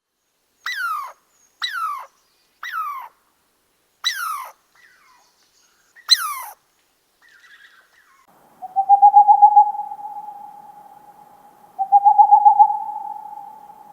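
Animal calls: five short falling cries in the first six seconds, then two long, loud, quavering hoot-like calls on one steady pitch, the second starting about three seconds after the first.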